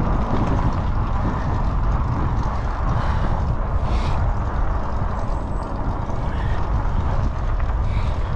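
Wind rushing and buffeting on the microphone during a bicycle ride, a steady loud rumble with no clear pitch.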